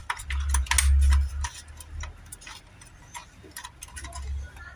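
Irregular small clicks and taps of plastic and metal parts being handled and seated by hand inside an opened BenQ projector's chassis. A dull low rumble comes about a second in and again near the end.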